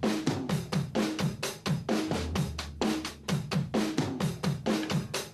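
Music: a fast, busy drum-kit beat of snare, hi-hat and cymbal hits over deep kick drums that slide down in pitch.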